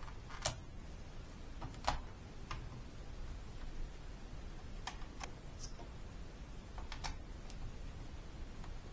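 A handful of light, sharp plastic clicks and taps from hands working over a stripped-down Toshiba Satellite C670D laptop, around its keyboard well and ribbon-cable connectors. The two loudest clicks come within the first two seconds, and fainter ones come about halfway and near the end.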